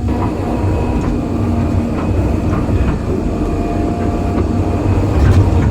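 Excavator's diesel engine running, a steady heavy rumble, with a few faint knocks near the end.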